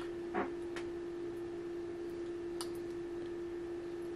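A steady, pure electronic tone, low-pitched, from the radio test bench while the handheld transmits through the amplifier into the dummy load, with a few faint clicks.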